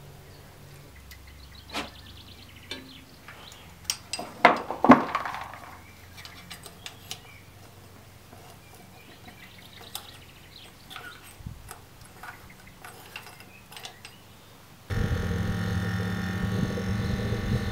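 Scattered small metal clinks and a few sharp knocks as a miniature steam locomotive's fittings are handled. Near the end there is a sudden switch to a loud, steady whirring hum: the steam-raising fan on the chimney running and drawing up the coal fire.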